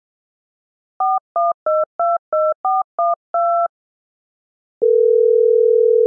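Smartphone keypad sounding eight quick touch-tone (DTMF) beeps as a number is dialled, the last one slightly longer. After a short pause, a steady low ringback tone starts near the end, the sign that the outgoing call is ringing through.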